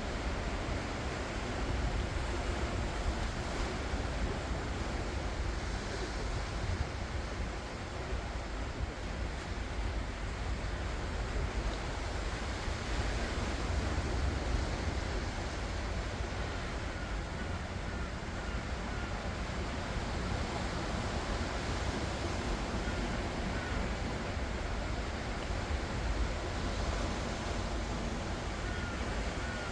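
Ocean waves breaking and washing onto the shore in a continuous surf noise that swells and eases slightly, with a low rumble of wind on the microphone.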